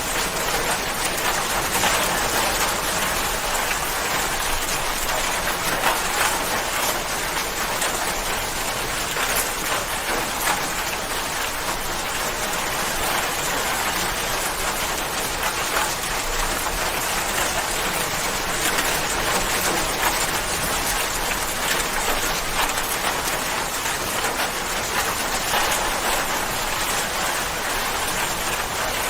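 Steady rain falling, an even hiss with many small drop ticks on a surface.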